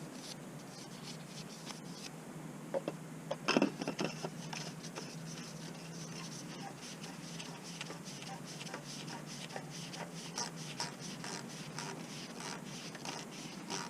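Faint rubbing and small clicks of hands working the plastic oil filter housing cap into place, with a few sharper clicks about three to four seconds in.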